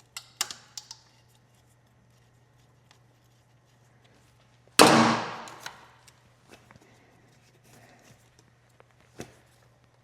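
Hand tools and parts being handled while freeing the motorcycle's radiator hoses: a few light clicks, then one louder clatter about five seconds in that dies away over a second, over a steady low hum.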